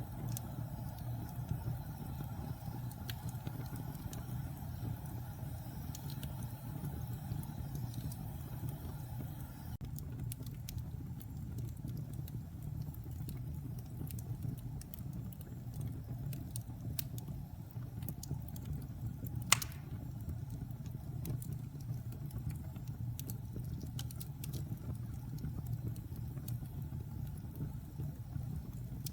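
Wood fire burning: a steady low rumble with scattered small crackles, and one sharp pop a little past the middle.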